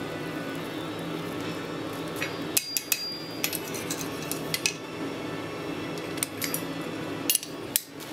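Steel tongs and locking pliers clinking against the anvil and a hot steel bar as it is bent around a post in the hardy hole. The sharp metallic clinks come scattered, several close together about two and a half to three and a half seconds in and two more near the end, over a steady low hum.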